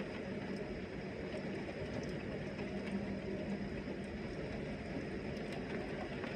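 Thunderstorm wind and heavy rain: a steady low rushing noise with faint scattered ticks of rain.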